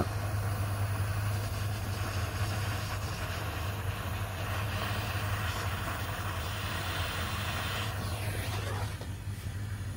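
Small handheld heat tool running with a steady rushing hiss as it heats an Anderson plug contact to melt solder into it. The hiss drops away about eight and a half seconds in.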